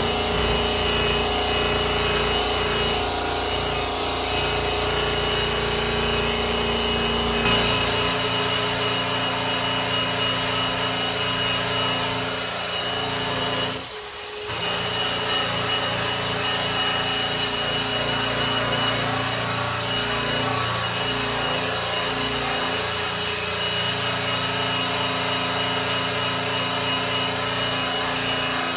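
Electric polisher running against a grand piano's finish, its pad rubbing steadily over the surface with a motor whine underneath. The tone changes about seven seconds in, and the sound briefly drops near the middle before carrying on.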